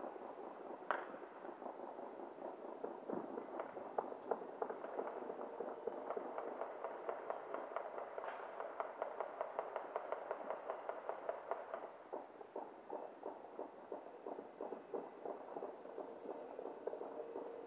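Distant New Year's midnight bangs: a run of rapid pops, several a second, from about six to twelve seconds in, with a few louder single cracks, the mix of firecrackers and celebratory gunfire around the neighbourhood.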